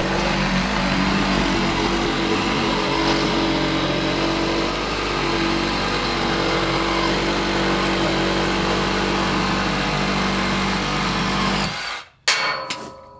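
A power tool's motor running steadily, cut off abruptly near the end, followed by a single knock that rings briefly.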